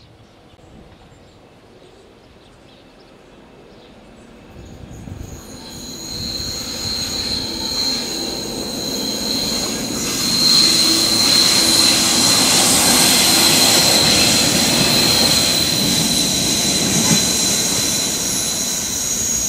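A diesel train approaching round a curve and passing close by, growing louder from about five seconds in and loudest in the second half. A steady high wheel squeal from the curved track runs through it.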